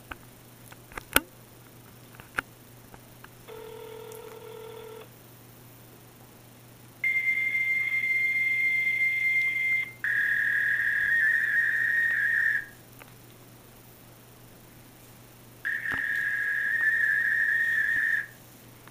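A few sharp clicks, then a short lower buzzing tone, then three long, steady, high whistle-like tones of about two to three seconds each, the first slightly higher in pitch than the other two.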